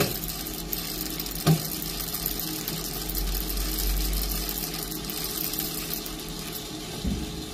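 Small electric home coffee roaster's motor and fan running steadily with a hum and a hiss, as the roasted beans are unloaded. A single sharp knock about one and a half seconds in.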